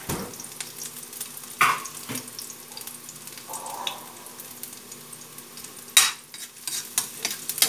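Minced garlic sizzling and crackling in hot oil in a metal wok, with a few spatula knocks and scrapes against the wok, the loudest about six seconds in.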